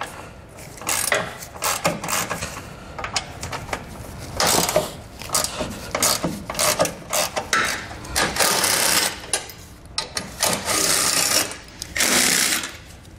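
Ratchet clicking as 13 mm bolts are backed out of a steel radiator support bar. The clicking runs densely throughout, and a cordless power ratchet runs in longer spells in the second half.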